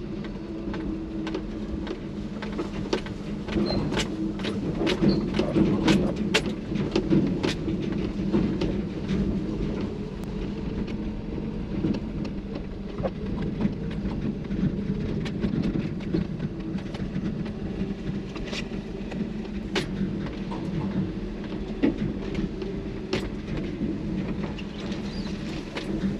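Kei truck's small engine running steadily in first gear at low speed, heard from inside the cab, with frequent sharp clicks and rattles as the truck jolts over rough ground, most of them in the first several seconds.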